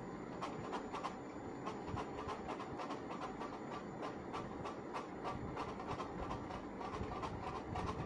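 A budgerigar pecking and cracking seed from a person's palm: quick, irregular clicks, several a second, over a steady background noise.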